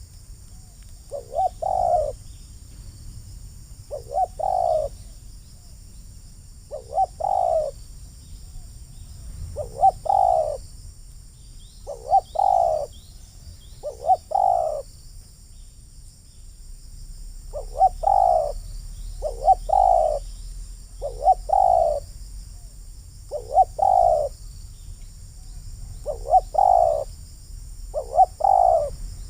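Spotted dove (terkukur) cooing over and over, a short phrase with a quick lead-in note about every two seconds, about a dozen calls in all.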